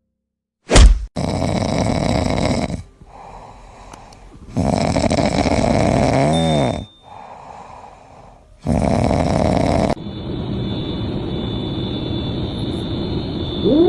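A pet snoring: three loud rasping breaths about two seconds long with short quiet gaps, followed by a steadier stretch of noise. A meow starts right at the end.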